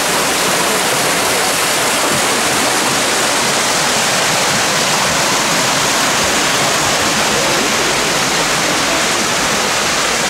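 Small waterfall splashing down over rocks: a steady rush of falling water.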